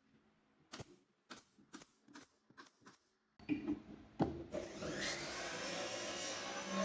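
A series of light knocks on wood, about two a second, then, about three and a half seconds in, an electric power tool starts up and runs steadily with a steady hum.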